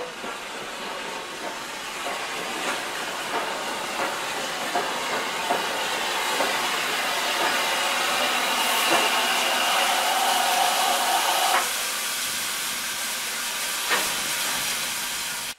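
Standing Southern Railway S15 class steam locomotive No. 825 hissing steam, the hiss growing louder through the middle. A steady higher-pitched tone sounds over it for a few seconds and cuts off sharply about twelve seconds in, with a few light clicks scattered throughout.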